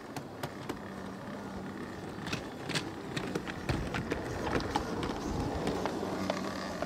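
Full-size heritage steam train of the Setesdalsbanen, a dubbed recording and not the model. It is running and growing louder, with irregular sharp clicks and clanks over a steady rumble.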